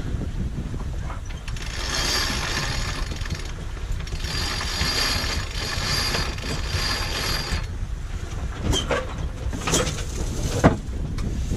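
Sailboat sheet winch ratcheting in two long runs as a line is hauled in on it just after a gybe, followed by a few sharp clicks and knocks near the end. Wind buffets the microphone underneath.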